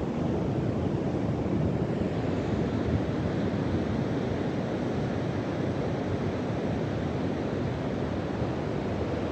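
Steady rush of surf and wind on an open beach, an even noise with no breaks, swelling slightly about two seconds in.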